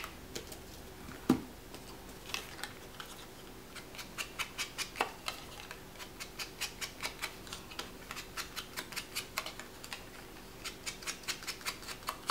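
A small craft sponge dabbing ink onto the edges of a die-cut cardstock label: runs of light, quick taps, about three or four a second. There is a single knock about a second in.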